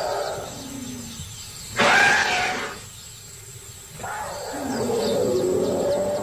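Young African elephants calling: lower, wavering roars, with a sudden loud, high trumpet about two seconds in that lasts under a second.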